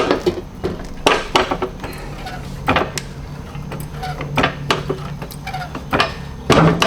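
Repeated metallic clicks and clanks, several coming in pairs about every second and a half, from metal parts being worked while fold-out RV steps are raised into place for bolting. A steady low hum runs underneath.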